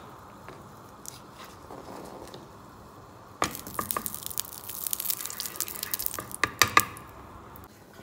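Cooking oil hitting a hot frying pan about three seconds in, spread with a spatula: a sudden burst of sizzling full of sharp crackles and pops that dies down shortly before the end.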